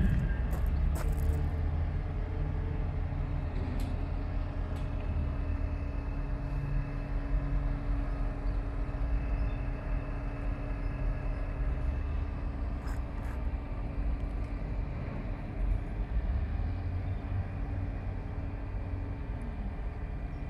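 Truck-mounted mobile crane's diesel engine running steadily under load as it holds a steel beam, with a few short metallic knocks.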